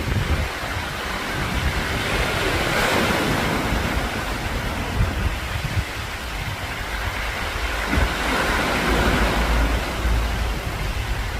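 Rain falling, a steady hiss that swells twice, with wind buffeting the microphone in low rumbles.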